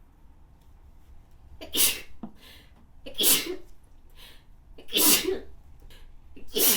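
A person sneezing four times in a row, about a second and a half apart, in a fit of repeated sneezes.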